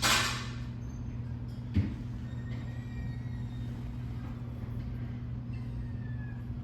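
Steady low mechanical hum, with a short hissing burst at the very start and a single soft thump about two seconds in.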